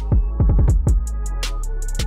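Electronic background music with a steady beat: deep kick drums, several a second, over a low bass, with sharp snare and hi-hat hits and a quick run of hi-hats near the end.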